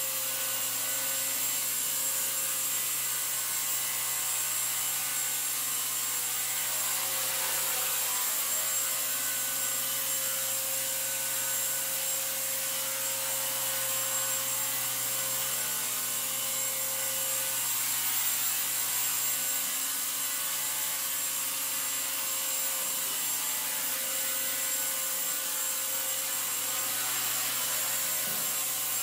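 Align T-Rex 250 SE micro electric RC helicopter hovering: the steady whine of its electric motor and drivetrain over the whir of the rotor blades.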